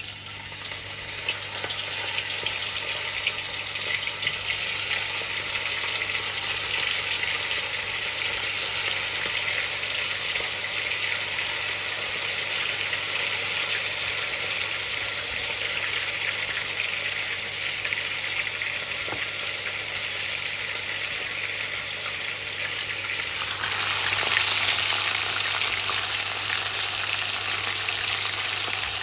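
Marinated king prawns in a gram-flour (besan) coating deep-frying in hot oil: a loud, steady sizzle that starts suddenly as they go in and grows brighter and louder about three-quarters of the way through.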